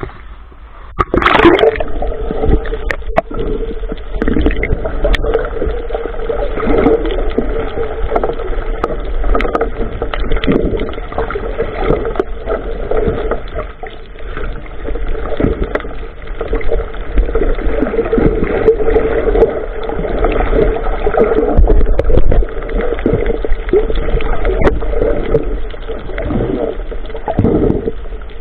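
Water splashing and gurgling around a small boat, over a steady hum, with a sharp knock about a second in.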